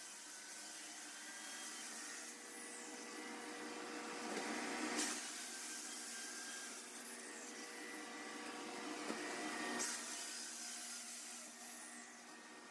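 Electric joint-cleaning saw with a dust vacuum on its hose, cutting out the saw-cut control joints of a concrete floor to clear the dust from them: a steady motor whine, with a hiss that drops out after about two seconds, comes back about five seconds in and stops near ten seconds.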